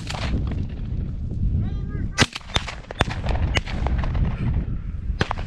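Shotguns firing at a flushed rooster pheasant: about six shots, irregularly spaced, some loud and close and others fainter from guns farther down the line, with wind rumbling on the microphone.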